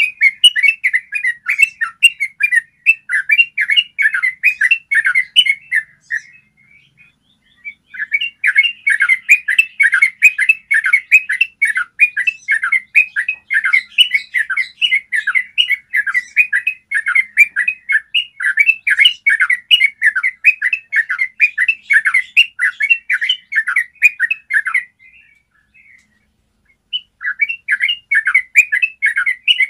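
Yellow-vented bulbul singing long, fast runs of clear chattering notes (the 'ropel' rolling song). The runs come in bouts, with short breaks about six seconds in and again near the end.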